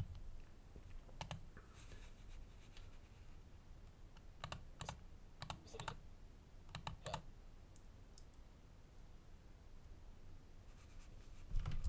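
Faint, scattered clicks of computer keys being pressed, in small clusters of two or three, going quiet for the last few seconds.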